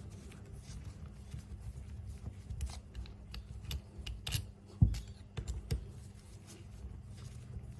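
Metal parts of a Tokico motorcycle brake caliper and hand tools being handled as the caliper is unbolted and split: scattered light clicks and scrapes, with one louder knock about five seconds in.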